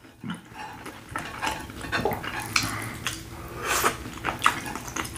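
Eating sounds close to the microphone: chewing and scattered wet mouth clicks, with light tapping and rustling of food handled on the trays.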